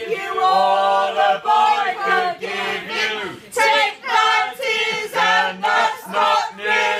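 A group of women singing together in a loud, rowdy sing-along, a line of held notes broken by short pauses.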